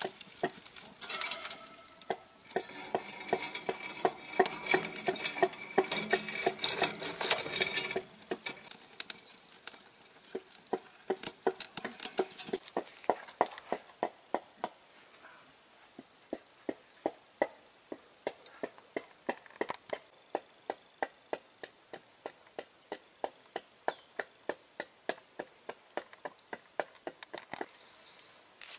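Dry twigs snapping and kindling crackling as the fire base of a Kelly kettle is fed, dense for the first several seconds. After that comes a long run of separate sharp ticks, about two or three a second.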